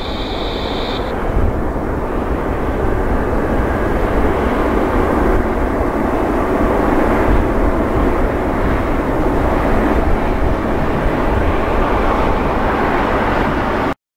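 Twin turbofan engines of a Boeing 787-8 at take-off thrust: a steady jet rumble that grows louder as the airliner lifts off and climbs toward the listener, cut off abruptly near the end.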